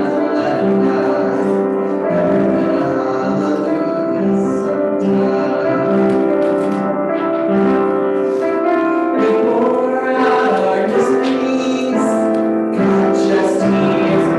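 Worship song playing: sustained instrumental chords with singing.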